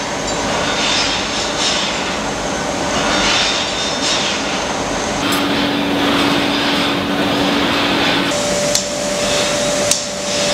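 Hot spring-coiling machinery running in a spring works: a steady roar with a low hum that shifts in pitch about five seconds in and again about eight seconds in. Two sharp knocks come in the last two seconds.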